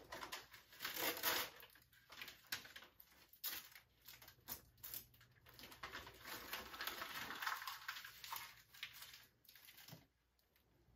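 Rustling and crinkling of bags and belongings being handled, with a few light knocks, stopping about ten seconds in.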